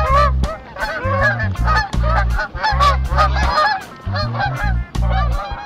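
Music with a stepped bass line and sharp percussion clicks, overlaid with many short, wavering, honk-like calls.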